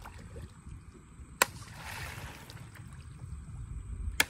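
Paddle strokes from a small wooden boat: a sharp knock about a second and a half in and again near the end, each followed by water swishing and splashing as the paddle pulls through. A low rumble of wind on the microphone runs underneath.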